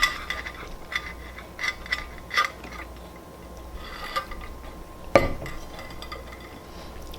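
Close-miked eating sounds from a donut mukbang: scattered small mouth clicks and smacks, with one louder knock about five seconds in.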